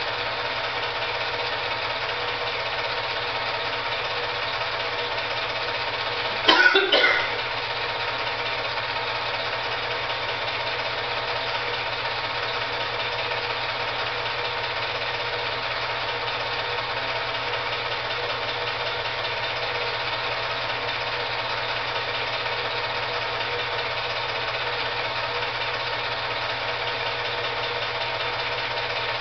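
8mm film projector running: a steady mechanical whirr and clatter, with a brief louder rattle of clicks about six and a half seconds in.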